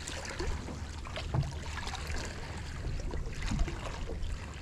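Sea water lapping and splashing around a landing net held at the surface beside a boat's hull, with a few small splashes over a steady low rumble.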